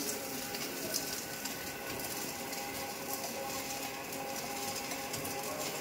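Slitter-rewinder machine running steadily as it slits 36-micron clear polyester film into narrow rolls: a steady mechanical hum with a hiss and a few faint held tones.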